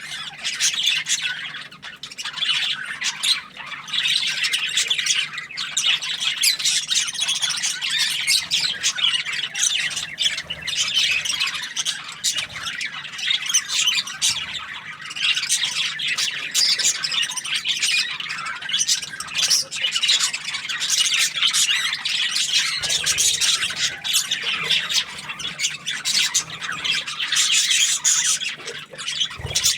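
Budgies (budgerigars) chirping and chattering continuously in quick, dense, high-pitched warbles and squawks.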